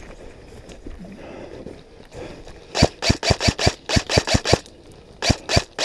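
Airsoft rifle firing close to the microphone: a rapid string of about a dozen sharp shots in under two seconds, starting about three seconds in, then two more shots near the end.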